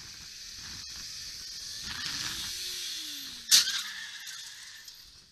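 Road crash: a single loud, sudden impact about three and a half seconds in, over rushing wind and traffic noise heard from a moving motorcycle, with a tone falling in pitch around the moment of the hit.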